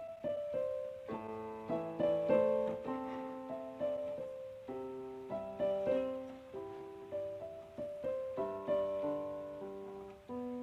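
Background piano music: a slow melody of separate struck notes, each ringing and fading, over soft chords.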